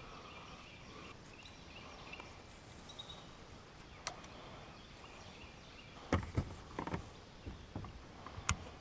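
Faint outdoor river ambience, broken by a single sharp click about four seconds in and then a cluster of knocks and clicks from fishing tackle being handled in a kayak, ending in a sharp click.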